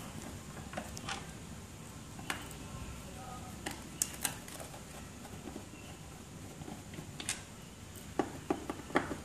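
Scattered light clicks and taps of a screwdriver working at the back panel of a white electrical unit, with a quick run of clicks near the end.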